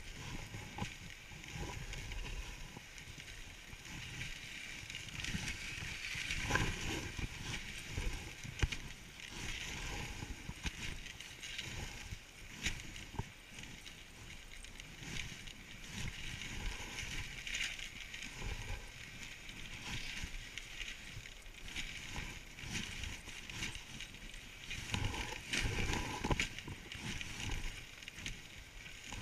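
A dog sled running over snow behind a team of huskies: a steady hiss of the runners with scattered small knocks and creaks from the sled.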